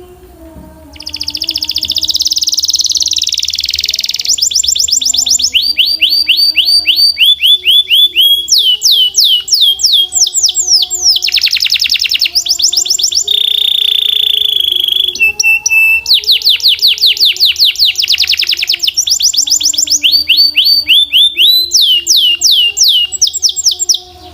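Belgian canary singing loudly in a long run of fast trills, each a quick train of falling whistled notes, switching from one trill to the next. There is a buzzy roll early on and a long held whistle in the middle. The song starts about a second in and stops abruptly just before the end, over faint low background tones.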